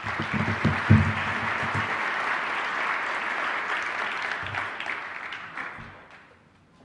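Audience applauding, starting loud, holding steady and fading out about six seconds in. A few low knocks sound under the clapping in the first two seconds.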